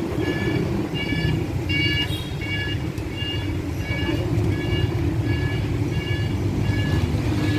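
Motorbike engine and street traffic running steadily, with a high electronic beep repeating evenly about one and a half times a second.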